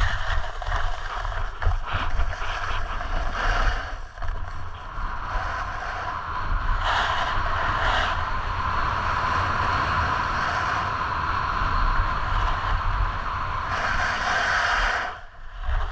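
Snowboard sliding down a groomed piste: a steady scraping hiss of the board's edges on the snow, with wind rumbling on the microphone. The scraping drops away briefly near the end.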